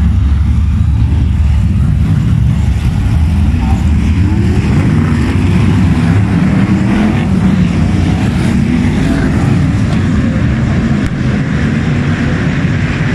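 Several F1 stockcars' V8 engines racing around a dirt oval: a loud continuous rumble of many engines at once, with one engine note climbing as a car accelerates about four seconds in.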